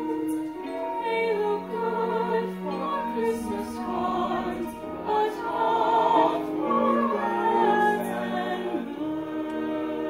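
Musical-theatre song: a teenage girl singing long held notes over instrumental accompaniment, the notes wavering with vibrato in the middle of the passage.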